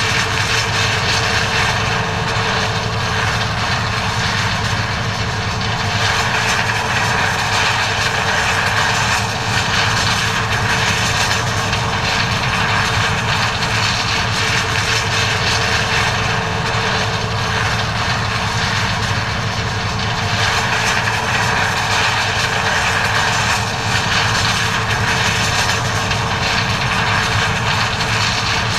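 John Deere 9400 combine running steadily while harvesting corn: a constant diesel engine and machinery hum with a steady whine, holding an even level throughout.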